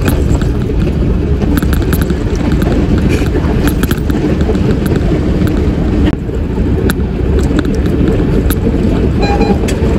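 Steady low rumble of a truck's engine and tyre noise heard from inside the cab at highway speed, with occasional faint clicks and rattles; the level dips briefly about six seconds in.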